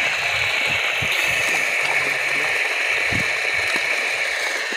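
Irrigation water rushing steadily along a muddy field channel, with a few soft low thumps.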